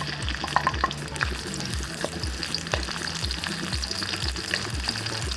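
Onion frying in hot sunflower oil: a steady sizzle with scattered crackles and pops. A low, evenly repeating beat of background music runs underneath.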